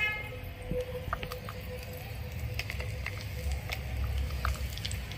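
Garlic, ginger and dried red chillies frying in a little hot oil in a miniature clay pot: a faint sizzle with scattered small pops and crackles.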